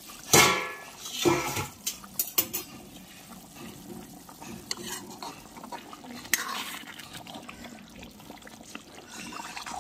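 A steel pot lid clangs and rings about half a second in, followed by a few lighter metal clinks over the next couple of seconds and one more later. Underneath, a pot of potato-and-pea curry bubbles at a boil.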